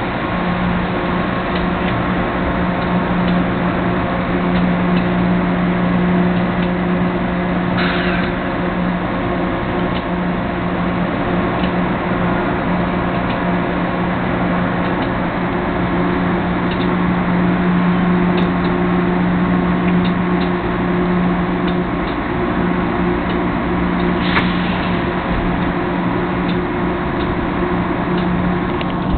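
Stationary AEM7 electric locomotive humming steadily, with a low tone held throughout. Two short higher-pitched noises break in, about eight seconds in and again about five seconds before the end.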